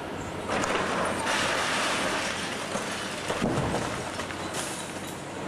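Long-reach demolition excavator's hydraulic crusher jaw breaking away concrete, with a dense crackle of crumbling concrete and falling rubble starting about half a second in and a few sharper knocks past the middle, over the steady hum of the excavator's engine.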